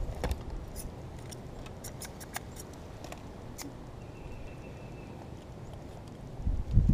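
Small sharp clicks and ticks of tackle being handled on a boat deck, about a dozen of them over the first four seconds, over a low wind rumble on the microphone. A louder low rush of wind or handling noise sets in near the end.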